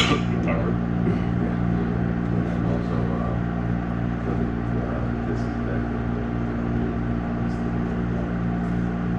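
Steady low hum of the room with several fixed pitches, from a building's electrical or ventilation equipment, with a sharp click right at the start.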